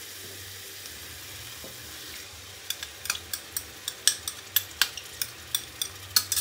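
Curry paste sizzling steadily in a frying pan. From about two and a half seconds in comes a run of sharp clicks and taps, about three a second, as a spoon scrapes watered-down tomato puree out of a container into the pan.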